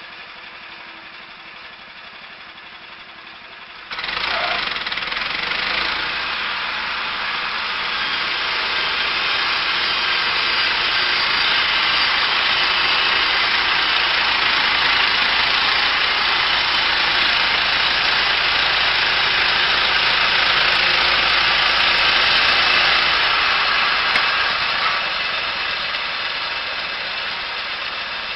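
A heavy wood-cutting machine running: a low steady machine sound, then about four seconds in a much louder, steady, hissing mechanical noise starts suddenly and keeps going, easing off near the end.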